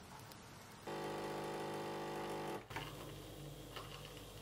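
Pump of a Magimix capsule coffee machine buzzing steadily for under two seconds as it brews coffee into a mug, then cutting off suddenly. A fainter hum and a couple of light clicks follow.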